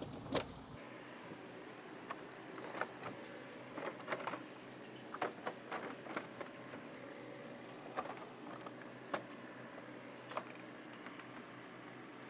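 Scattered clicks and knocks from a Toyota Corolla's plastic front bumper cover being pressed and fitted into place along its top edge, the strongest knock about half a second in.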